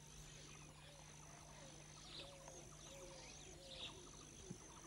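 Faint wildlife ambience of birds calling: scattered chirps and short whistled glides over a steady high-pitched tone.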